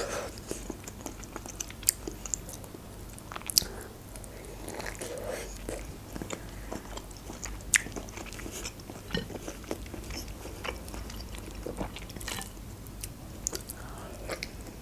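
Close-miked chewing and biting of steamed broccoli, with a few sharp crunching clicks scattered through. Near the end, a bite into a steamed manti dumpling.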